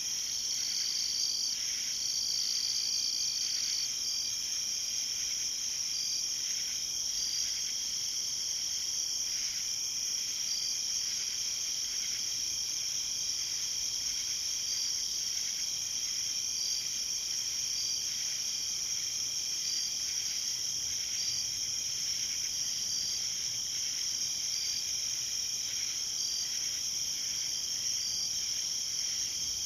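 Night insect chorus: a steady, high-pitched, unbroken trilling, with a separate short chirp repeating about once a second over it.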